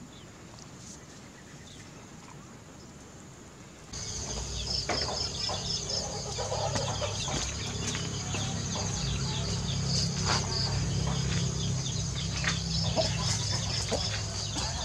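Faint open-air background that changes abruptly a few seconds in to a louder night chorus: insects trilling steadily in a high, pulsing band, over a low steady hum, with scattered clicks and crackles around the charcoal fire grilling the fish.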